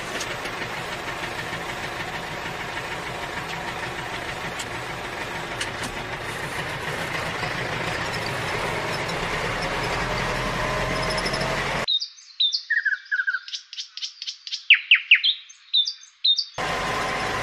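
A steady whirring hiss for about twelve seconds, then it cuts off abruptly and a burst of bird chirps, short high notes and quick falling sweeps, plays for about five seconds; the hiss then returns just as suddenly.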